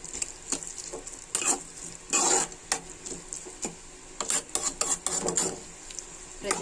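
A metal spoon stirring and scraping ridge gourd curry in an aluminium pan, in irregular strokes with a quick run of clicks around four to five seconds in, over a soft sizzle of the curry cooking in oil.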